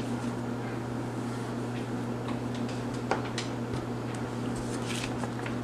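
A few faint clicks and taps of small plastic toy figures being handled, over a steady low hum.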